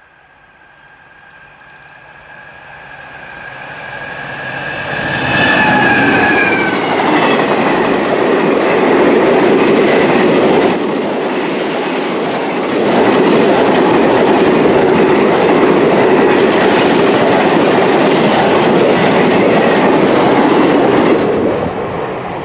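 A Class 66 diesel-electric locomotive, with its two-stroke V12, approaches and passes a container freight train, growing louder for about six seconds, its tones dropping in pitch as it goes by. The long rake of container wagons then rolls past with the clickety-clack of the wheels, easing briefly midway, and falls away near the end as the last wagon passes.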